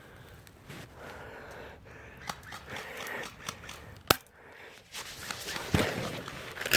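Dry brush crackling and rustling as someone moves through it, with a single sharp crack about four seconds in. The crackling grows busier near the end.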